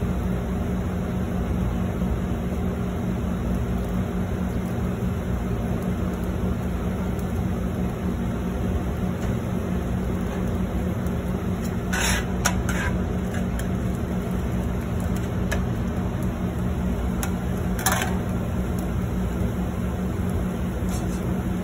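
Steady drone of a commercial kitchen's exhaust hood fan, with a constant low hum. A couple of brief clinks, about twelve and eighteen seconds in.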